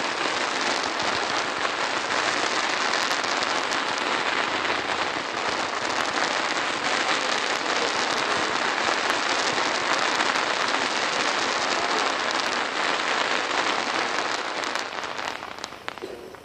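Ground fireworks fountain crackling steadily, a dense hiss of tiny pops. It thins out and dies away about fifteen seconds in, with a few last crackles.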